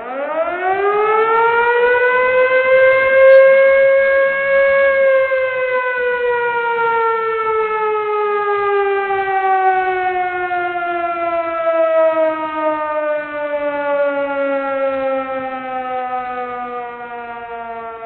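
Emergency warning siren sounding one long wail: its pitch rises over the first four seconds or so, then slowly falls for the next dozen seconds before cutting off at the very end.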